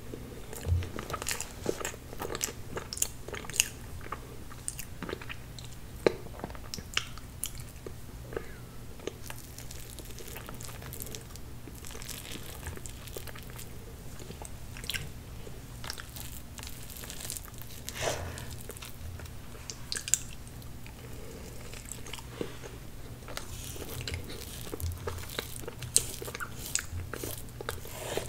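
Close-miked eating sounds: chewing and mouth sounds from mouthfuls of chocolate tiramisu cake, with many irregular sharp clicks.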